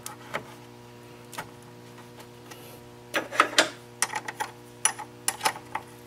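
Wrench clinking and clicking against a car battery's negative terminal as the cable clamp is refitted and its bolt tightened: scattered metallic ticks, a loud cluster a little past three seconds in and a run of them after four seconds. A steady low electrical hum runs underneath.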